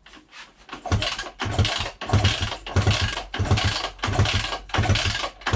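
Yamaha DT250 two-stroke engine being kicked over repeatedly with its spark plug out, in an even rhythm of about ten loud strokes a little under two a second. It turns over without firing: there is no spark.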